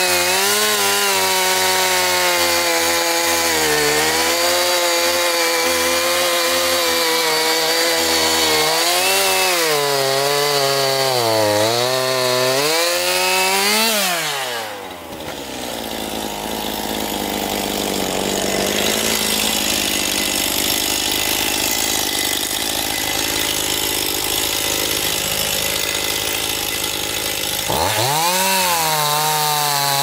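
Chainsaw cutting into a dead standing tree, its engine pitch rising and falling under load for about fourteen seconds, then dropping off sharply. It runs lower and rougher for about a dozen seconds before revving back up near the end.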